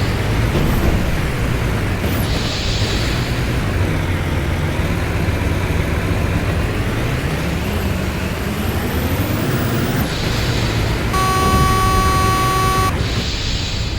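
Heavy vehicle engine running, its pitch rising and falling, with a horn blast lasting under two seconds about eleven seconds in.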